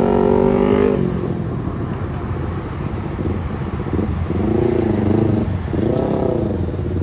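Sport motorcycle engine held at high revs on a steady note that stops about a second in, then two revs about four and six seconds in, each rising and falling in pitch, over road traffic noise.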